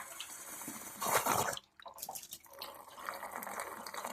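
Water running and dripping as a residential water heater is drained, with a louder surge about a second in and a brief cut-out just after.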